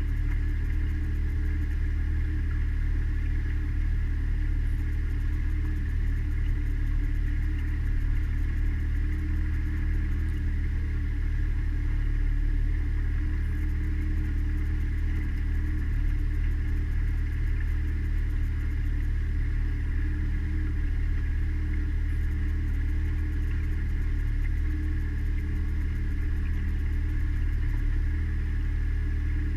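Mariner outboard motor running steadily under way, a constant drone with an unchanging pitch.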